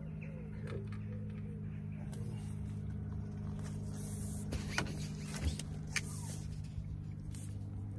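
A steady low mechanical hum, with a few sharp clicks and short hisses about halfway through.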